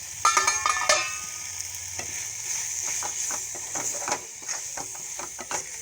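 A metal lid clatters off the pan in the first second, then thickened beetroot masala sizzles while a spoon stirs and scrapes the pan with quick, irregular clicks.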